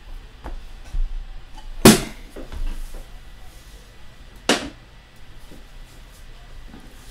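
Trading-card boxes being handled and set down on a table: two sharp knocks about two and a half seconds apart, the first the louder, with a few lighter taps between.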